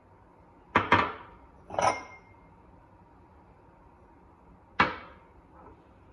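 Small ceramic bowls clinking against each other and being set down on a hard countertop. A quick double knock comes about a second in, then another with a short ring, and a single knock near five seconds.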